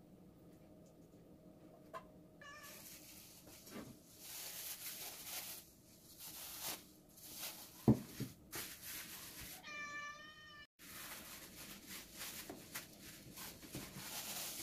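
A cat meows: one wavering call of about a second a little past halfway, with a brief shorter call near the start. Under it runs a rustling noise with scattered knocks, the sharpest and loudest a little before the long meow.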